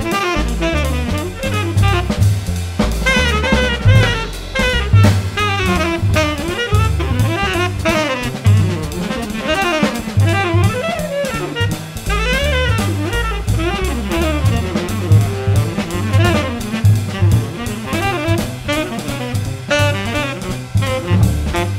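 Jazz trio playing: a tenor saxophone carries a running, gliding melody over plucked double bass and a drum kit played with sticks, the cymbals ringing constantly.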